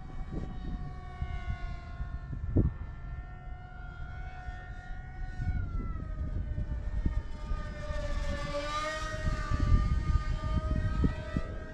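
Brushless electric motor and propeller of a small RC foam jet-style plane whining in flight. The whine is held steady, then grows louder from about two-thirds of the way through as the plane makes a close pass, its pitch dipping and rising again. Gusts of wind rumble on the microphone throughout, with one sharp buffet a couple of seconds in.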